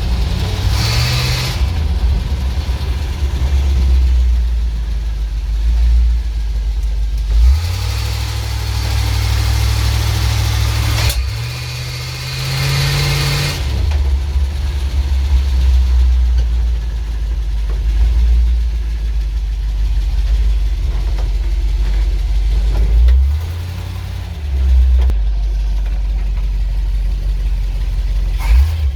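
ZIL truck's petrol engine running at a fast idle, revved up briefly twice, with a few sharp pops in between. The engine is misfiring and backfiring with its ignition and carburettor not yet set right, though it runs better than before.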